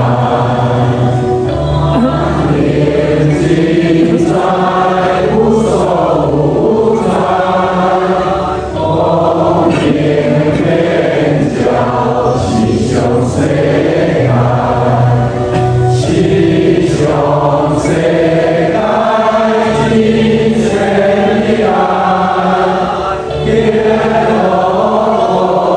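A congregation of many voices chanting in unison in slow, held phrases, with brief pauses for breath about nine seconds in and near the end.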